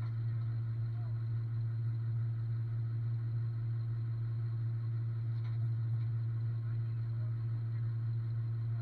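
Steady low drone of an idling tow truck's diesel engine, heard from inside the cab.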